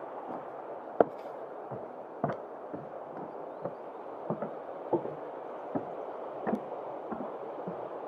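Walker's footsteps on a trail, a short knock about every two-thirds of a second, over a steady background hiss.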